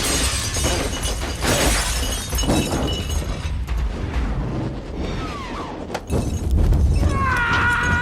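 Film sound effects of a shootout's wreckage: glass shattering and crashing again and again over a low rumble. Near the end a steady multi-pitched tone comes in and holds.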